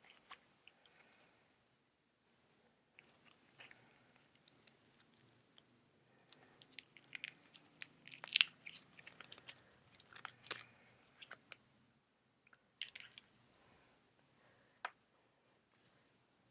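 Packaging being handled, crinkling and rustling in bursts with small sharp clicks; the loudest crackle comes about eight seconds in, and it grows fainter after about twelve seconds.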